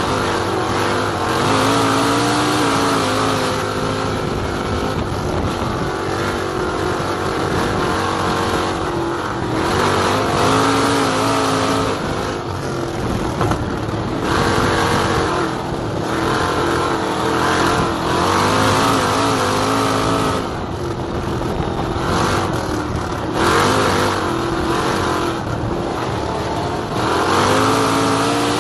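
Open-wheel dirt-track race car's engine at racing speed, heard on board. The pitch rises on the throttle and drops off again every several seconds, lap after lap, over steady wind and tyre noise.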